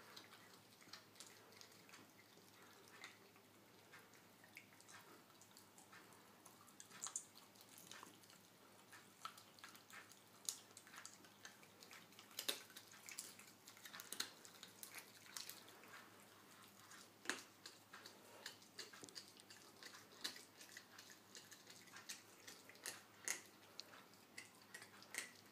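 An American Hairless Terrier and a Sphynx cat chewing and gnawing at a piece of chicken: faint, wet smacking and clicking, irregular, several a second, with a few louder clicks scattered through.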